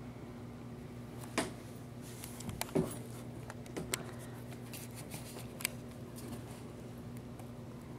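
A husky puppy shifting about on a lap, making a handful of soft clicks and rustles over a steady low hum.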